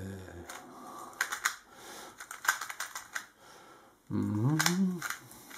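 YJ MGC Elite magnetic 2x2 speed cube being turned by hand: a run of sharp plastic clicks as the layers snap into place, a dry, almost ceramic-sounding clack from an unlubricated cube. A short wordless hum from the cuber sits at the start and again about four seconds in.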